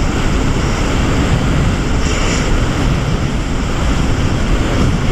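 Jet ski under way at speed: a steady rush of churning water and spray, with wind buffeting the microphone held low over the water.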